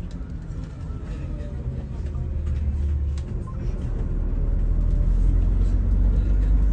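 Bus engine and road rumble heard from inside the moving coach, a steady low drone that grows louder about four seconds in.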